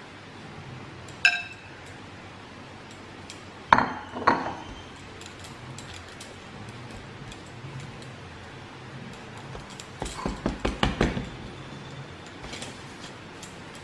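Kitchen handling clinks and knocks as a bowl and a dough ball are worked on a counter: one sharp ringing clink about a second in, two knocks near four seconds, then a quick run of taps around ten to eleven seconds.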